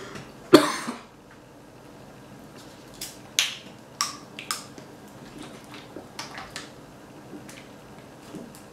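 A single loud cough about half a second in, set off by a mouthful of hot-sauce-covered chip. Then a run of sharp plastic clicks and crackles, loudest between about three and four and a half seconds in, as a plastic water bottle's cap is twisted open and the bottle handled.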